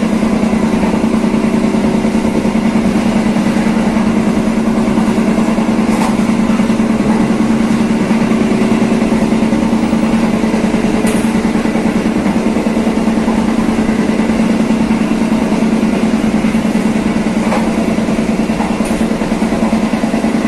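Passenger train running along the track, heard from on board: a steady low drone with faint clicks now and then.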